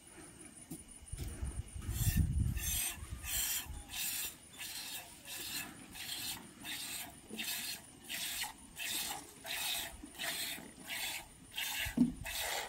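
Goat being milked by hand: milk squirting into a pail in short hissing strokes, about two a second, starting a couple of seconds in.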